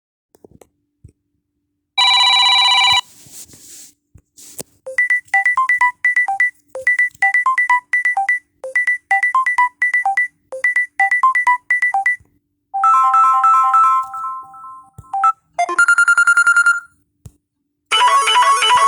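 Samsung Galaxy A01 ringtones played one after another: first a short held chord, then a long run of quick, short repeating notes, then a few shorter tone patterns, with another ringtone starting near the end.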